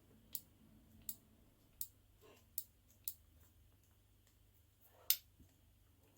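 Faint, irregular clicks and light scrapes from working on a plastic car key fob while rubbing leftover badge adhesive off it: about six in all, the loudest about five seconds in.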